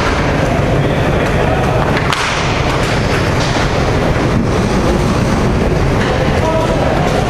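Loud, steady rushing noise with a heavy low rumble, unbroken throughout, with faint distant voices near the end.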